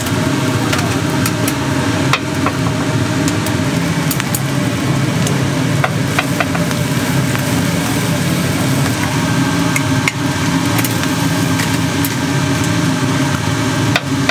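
A steady low mechanical drone, with many short sharp crackles scattered over it.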